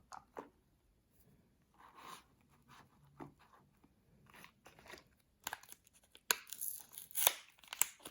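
Soap bars being unwrapped and handled: wrapping crinkling and tearing, with light clicks and taps. The rustling turns busier and louder about halfway through.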